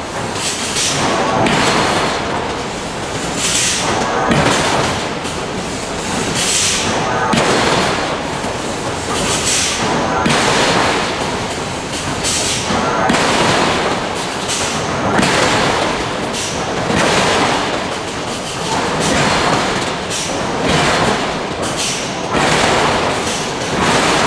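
Hydraulic forging hammer working steel in a forge shop: a constant din with a repeating surge about every three seconds.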